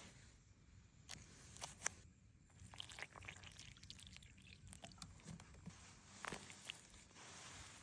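Near silence, broken by a few faint crunches and clicks, with one sharper click about two seconds in.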